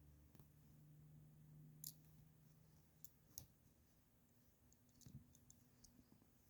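Faint clicks from handling a plastic airsoft gun and its packaging: two sharper clicks about two and three and a half seconds in, then a quick run of small ticks between five and six seconds, over a faint low hum.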